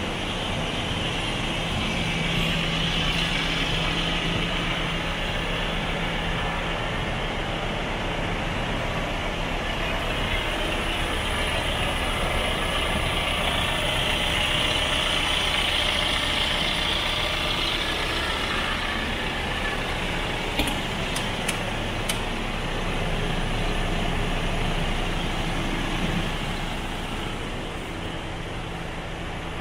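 Scania R440's 12.7-litre straight-six diesel idling steadily, with a few light clicks about two-thirds of the way through.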